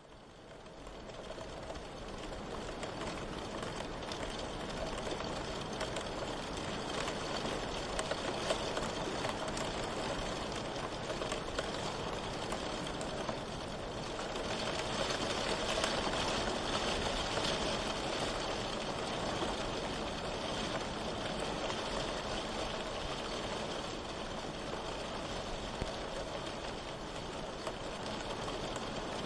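Steady rain, a continuous hiss of falling rain that fades up over the first two seconds and swells a little in the middle.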